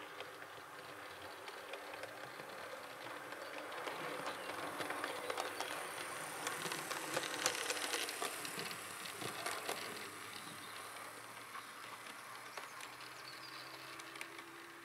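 Hornby OO gauge LMS Stanier Class 4P 2-6-4T model locomotive running on the track, its motor and wheels giving a steady rattle with many small clicks. It grows louder as it passes close by about halfway through, then fades as it runs away.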